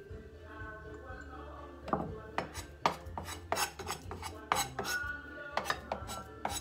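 Kitchen utensil clatter: a chef's knife and a small glass bowl knocking and scraping on a plastic cutting board while a burger patty is shaped, a string of sharp clicks and knocks starting about two seconds in.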